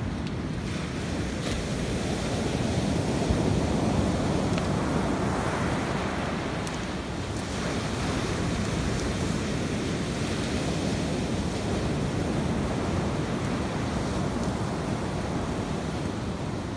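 Ocean surf breaking and washing up a sand beach: a continuous rushing wash that swells louder a few seconds in, then holds steady.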